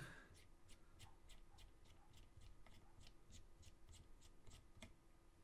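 Faint, quick ticks from a small Phillips screwdriver unscrewing the screw that secures the floppy disc on the hub of a floppy-disc delay unit, at about three to four ticks a second.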